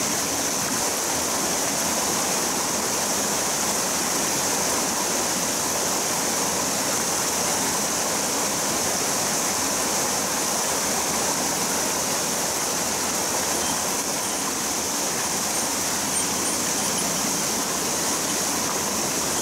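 Water pouring over a small concrete erosion-control dam and rushing down a rocky mountain stream: a steady, even rush of water.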